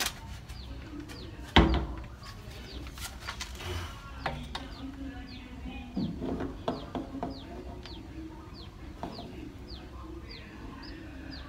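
A sharp knock about a second and a half in, then a few lighter taps and clicks of PVC pipe being handled and pushed into an elbow fitting. Behind them a bird repeats a short, high, falling chirp about twice a second.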